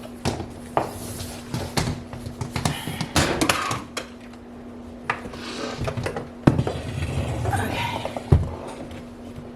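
Irregular clattering, knocks and scraping of household items being handled and moved about in a kitchen cabinet, with a steady low hum underneath.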